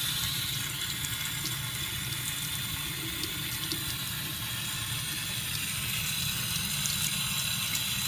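Canned compressed air spraying in one long, steady hiss, blowing dust out of a CPU cooler's radiator fins.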